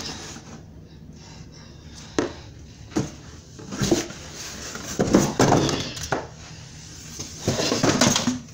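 Cardboard boxes and paper being knocked about: a string of irregular knocks and rustles, busiest in a cluster near the end.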